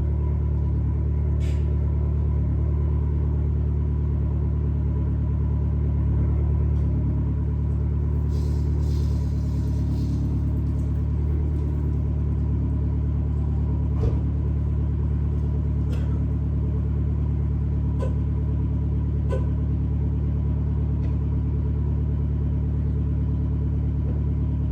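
Fiat's engine idling steadily as it warms up after a cold start. A few light knocks or clanks sound over it, about a second in and several times in the second half.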